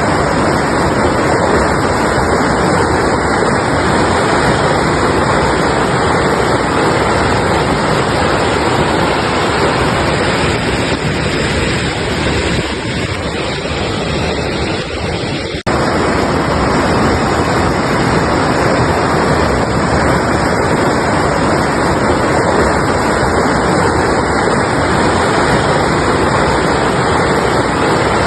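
Mountain river rushing steadily over rocks. About halfway through, the sound softens slightly for a few seconds, then cuts back in abruptly.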